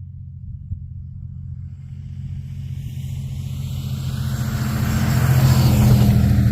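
Ram 2500 pickup truck driving: a steady low engine hum under road and wind noise that grows louder through the last few seconds, with a faint tone rising in pitch partway through.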